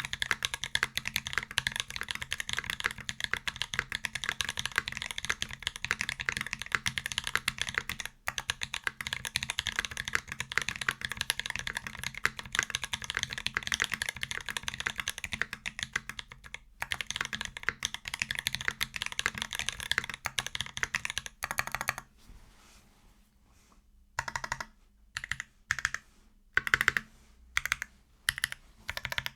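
Fast, continuous typing on a TX60 60% mechanical keyboard with lubed OG Holy Panda tactile switches, a copper plate and GMK keycaps. After a brief pause near the end, single key presses come one at a time, a few of them louder.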